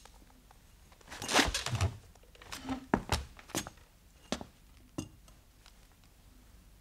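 Movement in a small office: a short rustle and a dull thud, then four sharp knocks about two-thirds of a second apart, each fainter than the last, before low room tone.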